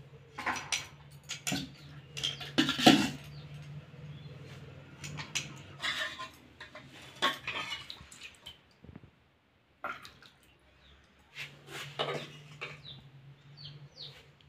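Metal serving spoons scooping and scraping food out of aluminium cooking pots and a pressure cooker, with irregular clinks and knocks of steel on metal.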